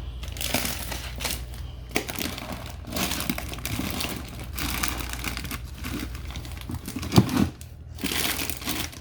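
Plastic zip-top bags crinkling and rustling as they are rummaged through, with scattered clicks and one sharper knock about seven seconds in.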